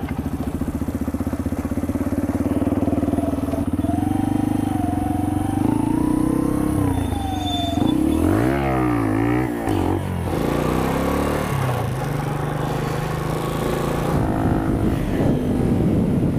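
Motorcycle engine running steadily under way, then revved up and down several times in quick succession about eight seconds in before settling back to a steady run.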